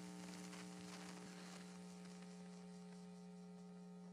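Faint steady electrical hum, a low tone with a ladder of overtones, over a light hiss: mains hum in the recording.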